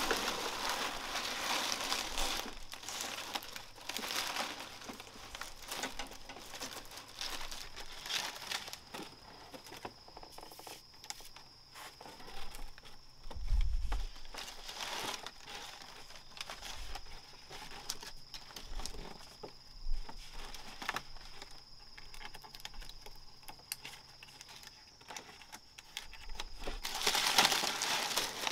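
Irregular rustling and crackling of plant material being handled, with a heavier thump about halfway through. A thin, steady high whine sets in near the start and stops shortly before the end.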